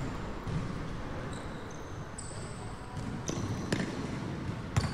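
A basketball bouncing on a sports-hall court floor, with irregular thumps and several short high-pitched sneaker squeaks, in the echo of a large gym.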